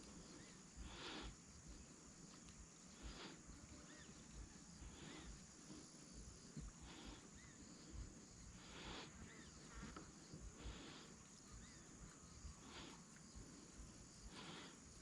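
Quiet lakeside outdoors: soft swishing noises every second or two, with a few faint high bird chirps.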